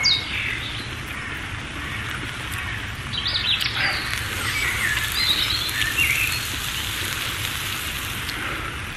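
Small birds chirping in a run of short calls through the middle, over a steady hiss.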